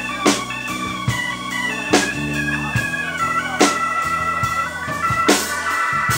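Live funk band playing: a saxophone holds and steps through melody notes over an organ-toned keyboard, electric bass and drum kit. A sharp drum hit cracks through about every second and a half.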